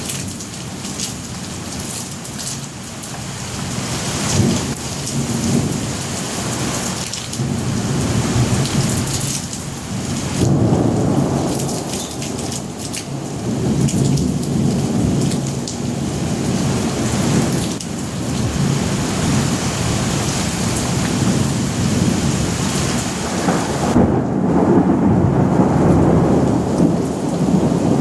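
Steady heavy rain hissing, with thunder rumbling underneath in several long rolling swells. The loudest roll comes near the end.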